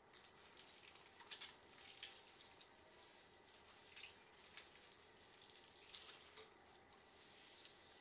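Faint squishing and crackling of shampoo lather as fingers scrub through wet, foamy hair, in irregular soft bursts over a faint trickle of water in the wash basin.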